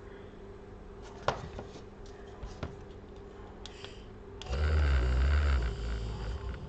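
Leftover adhesive being rubbed and scraped off a plastic phone frame. A few light clicks come first, then loud, rough rubbing starts about four and a half seconds in and keeps going.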